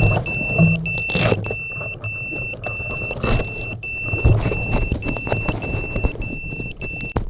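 FPV quadcopter's buzzer beeping a shrill tone about twice a second, the lost-model alarm of a downed quad. Rustling and knocks come through as the quad is moved in the grass.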